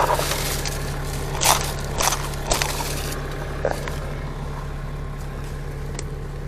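Crunching and scraping of rope and branches as a climber rigs his rope in a tree, in several bursts over the first few seconds, with two sharp clicks near the end. A tractor engine idles steadily underneath.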